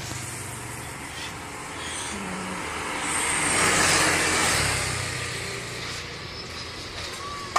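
A motor vehicle passing by on the road, its engine and tyre noise swelling to a peak about four seconds in and then fading away. A short sharp click near the very end.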